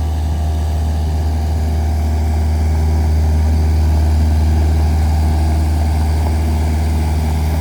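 Jacobsen 311 lawn mower's engine running steadily at idle.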